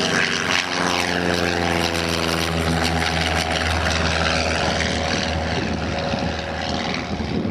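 Light propeller aircraft's piston engine and propeller running, its drone slowly falling in pitch and fading about five seconds in, with gusty wind rumbling on the microphone.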